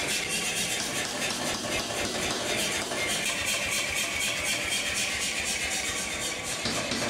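Power hammer running and striking a red-hot steel block in rapid, evenly repeated blows over the machine's steady running noise, while the body of an axe head is forged.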